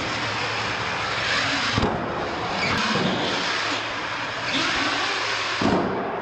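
An RC monster truck's motor and tyres running on a concrete floor as it is driven fast over ramps, with a thud as it lands near the end.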